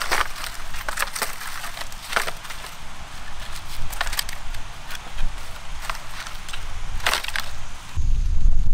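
Dry palm fronds crackling and snapping as they are handled and pushed into a pit, with several sharp crunches. The crunches come about 2, 4 and 7 seconds in.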